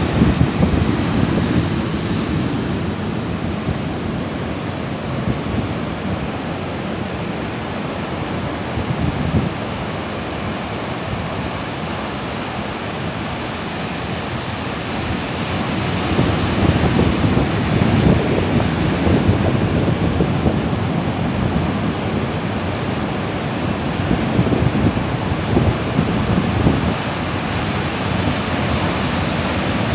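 Large ocean waves crashing and churning onto rocks, a continuous wash of surf that grows louder in the second half, with wind buffeting the microphone.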